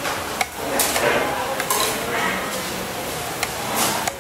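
Spoon and fork clinking and scraping against a plate during a meal: several sharp clinks over a steady background din.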